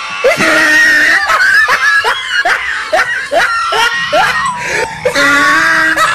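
Laughing and screaming voices, with music behind. A held scream comes first, then a run of short laughs, then another long cry from about 5 s.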